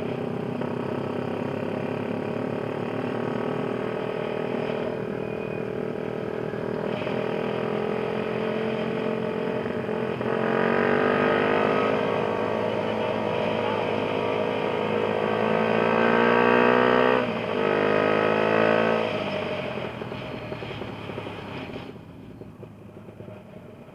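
Motorcycle engine running under way: about halfway it revs up in a rising pull, dips briefly as a gear is changed, pulls again, then eases off and drops away near the end.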